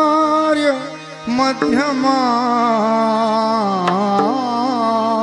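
A male kirtan singer holding a long ornamented note without words, his voice gliding and wavering over a steady drone accompaniment, with a short break about a second in.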